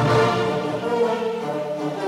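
Concert wind band playing, with held chords from many instruments at once.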